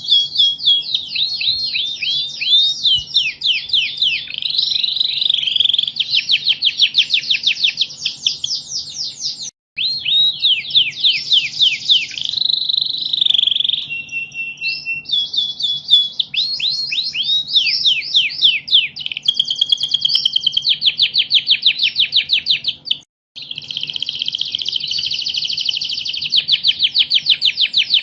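Domestic canary singing continuously: fast rolling trills and rapidly repeated notes, with some held whistles. The song breaks off abruptly twice for a moment, once about ten seconds in and once past the twenty-second mark. A faint steady low hum lies underneath.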